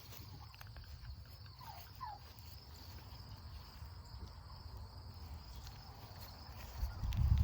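Insects chirping in a steady, continuous high drone, over a low rumble that swells loudest near the end. Two short rising chirps come about two seconds in.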